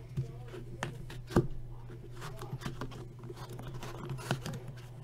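Hands handling a cardboard trading-card box and the cards inside it: light taps, scrapes and rustles, with one sharper knock about a second and a half in.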